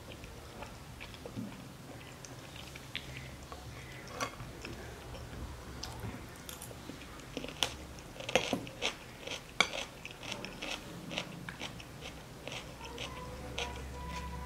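A metal fork clinking and scraping on a ceramic plate while a person bites and chews food. The sharp clicks come irregularly and are busiest about halfway through.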